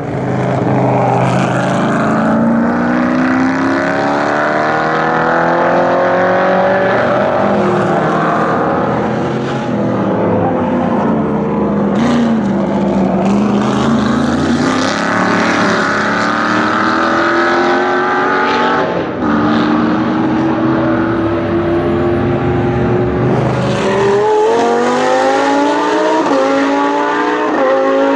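Historic racing car engines accelerating hard past, their pitch climbing through each gear and dropping back at the upshifts, with several cars following one another.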